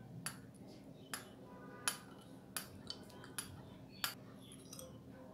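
Metal spoon clinking and scraping against a small ceramic bowl while scraping out raspberry jelly: about seven sharp clinks at irregular intervals, a couple ringing briefly.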